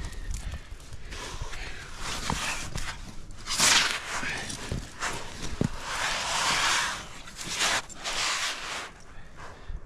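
A rock climber moving on the rock: a few sharp clicks and scuffs from shoes, hands and gear, and several breathy hisses about a second long, like hard breathing.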